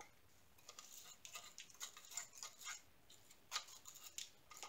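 Faint, scattered small clicks and scrapes of a thin tool and tiny resin diamond-painting drills against the plastic of a mini desktop vacuum, as drills stuck by static are picked from its nozzle; the vacuum's motor is off.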